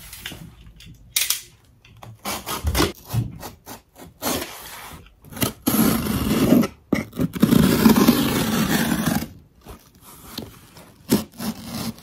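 Box cutter blade slitting the packing tape and cardboard seam of a shipping box: a few short scraping cuts, a longer stretch of steady scraping in the middle, then a few more short cuts near the end.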